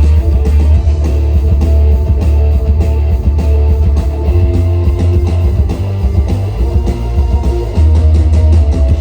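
Rock band playing live and loud: guitar over a heavy, booming low bass, with rapid drum hits throughout.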